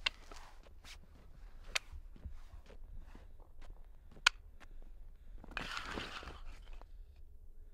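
Pilgrims prostrating on an asphalt road: a few sharp clacks as they strike the road, the loudest a little past the middle, then a scraping rustle for about a second as a body slides forward flat on the road.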